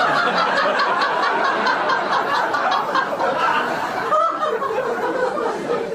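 Laughter sound effect: people laughing without a break.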